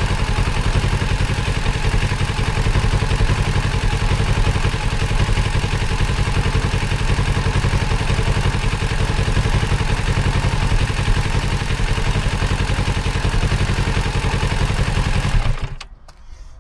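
2024 Kawasaki Z650's parallel-twin engine running steadily at idle while the bike is left running to spin the drive chain. It is shut off abruptly shortly before the end.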